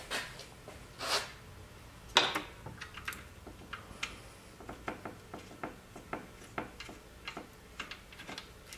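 Steel parts of a snowblower's track drive clinking as a side plate is worked onto its hub and shaft: three sharper metal clanks in the first couple of seconds, then a string of light ticks and clicks.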